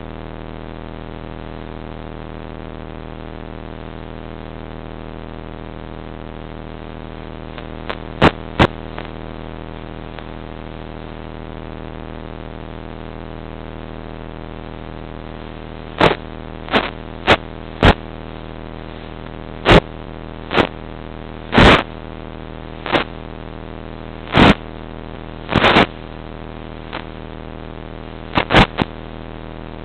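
Steady electrical buzz with many even overtones from an analog FPV video downlink's audio channel. Loud sharp crackles of radio static break in: a pair about eight seconds in, then a dozen or so irregular cracks through the second half. The buzz holds the same pitch while the plane's throttle changes, so it is not the motor.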